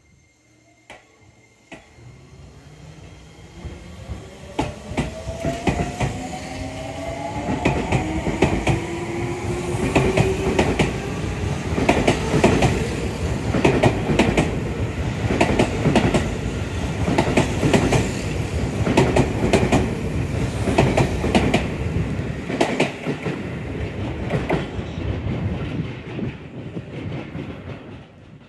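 A Seibu 20000 series electric train's Hitachi IGBT-VVVF inverter and traction motors as it pulls away from a stop: several whining tones rise together in pitch over the first ten seconds or so. Then comes a steady, rhythmic clatter of wheels over rail joints as the cars pass, fading away near the end.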